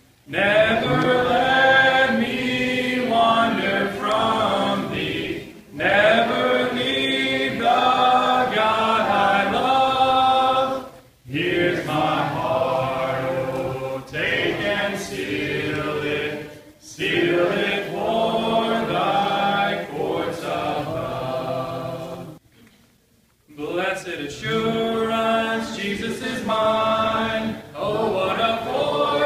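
Congregation singing a hymn unaccompanied, led by a man's voice at the microphone, in sung lines a few seconds long with short breaths between them and a break of about a second about three-quarters of the way through.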